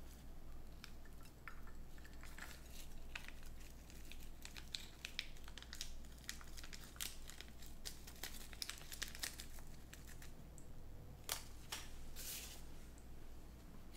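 Mouth sounds of someone eating ramen noodles: a string of small wet clicks and smacks, with a short louder burst of noise near the end.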